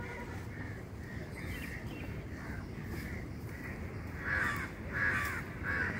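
Birds calling with short harsh repeated calls, fainter at first, then a run of about three louder calls in the last two seconds, over a steady low background rumble.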